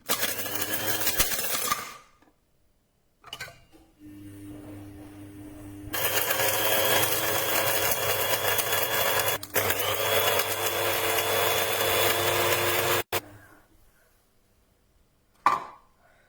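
300 W electric blade coffee grinder's motor and stainless steel blades running in bursts. A short burst comes first, then a longer run of about seven seconds that dips briefly, spins back up and cuts off suddenly. A single click follows near the end.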